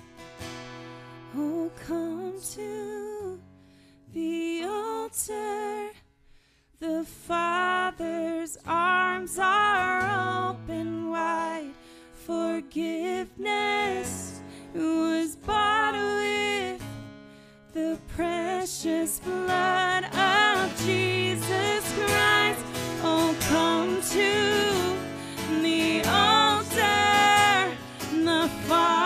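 Live worship song: a woman singing to acoustic guitar strumming. It starts softly, breaks off briefly about a fifth of the way in, then comes back fuller and louder.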